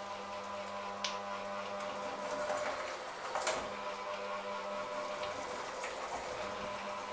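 Electric hand mixer running steadily, its beaters working a thick mixture in a stainless steel bowl, with a few sharp clicks about a second in and again near the middle.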